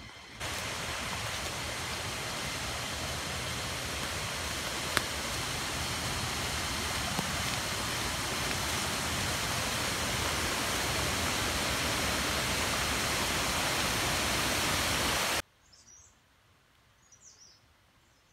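A steady, even rushing noise that swells slightly and cuts off abruptly about fifteen seconds in. A few faint high bird chirps follow.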